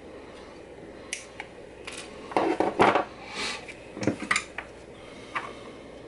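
Metal side cutters being handled and set down on a wooden desk: a scatter of sharp metal clicks and knocks, loudest as a cluster in the middle.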